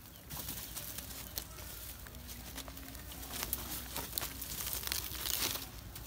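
Dry leaves and twigs crackling and rustling underfoot as a Komodo dragon walks over leaf litter, with a denser run of sharp crackles from about three and a half to five and a half seconds in.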